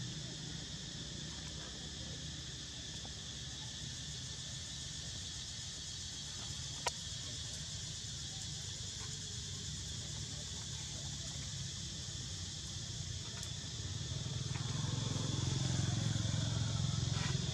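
Steady drone of insects outdoors, over a low rumble that grows louder near the end, with a single sharp click about seven seconds in.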